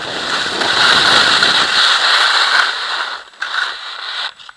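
Skis scraping and chattering over hard, icy snow at speed, a rough crackling hiss that drops away sharply near the end.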